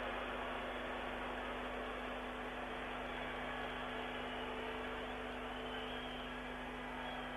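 Steady hiss with a low mains hum from an old broadcast soundtrack.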